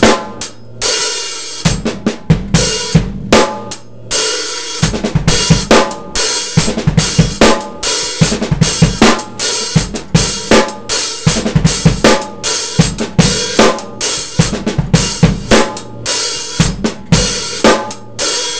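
Acoustic drum kit played with sticks: a half-time groove with a steady 16th-note hi-hat pattern, ghosted snare notes, bass drum and an accented snare backbeat on three. The playing breaks off briefly twice in the first few seconds, then runs on.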